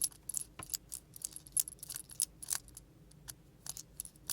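Quick irregular small clicks and scrapes of screws being turned out of a 3D-printed plastic fidget slider with a small screwdriver.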